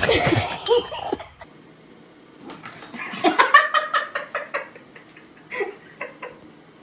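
A person laughing in short bursts, loudest about three to four seconds in, after a brief loud burst of noise in the first second.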